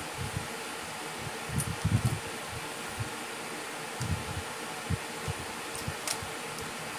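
Steady even background hiss with a few soft low bumps and thuds, typical of food and cups being handled at a table during a meal; no speech.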